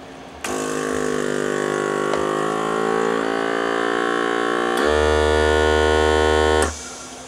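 Countertop bar heat sealer running a seal cycle on the cut edge of a 7 mil mylar bag: a machine hum starts about half a second in, steps up to a louder, deeper buzz after nearly five seconds, and cuts off suddenly near the end.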